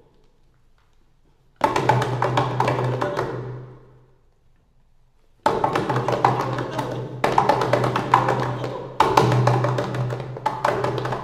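Rapid hand tapping and drumming on a wooden tabletop. A burst starts suddenly about a second and a half in and fades away, then after a pause the drumming starts again abruptly and runs on, jumping louder twice.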